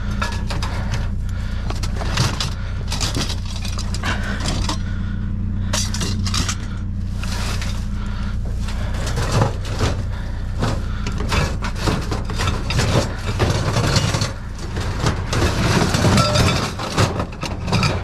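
A vehicle engine idling steadily under repeated clanks, knocks and rattles of metal scrap being handled, busiest near the end.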